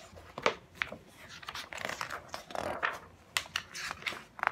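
Paper and books being handled: irregular rustles and light taps of paper sheets and book covers.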